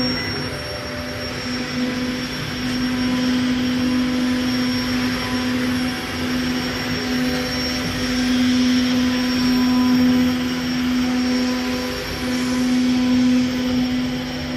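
CNC router machine running: a steady humming tone with a hiss of noise over it, the level rising and falling slightly.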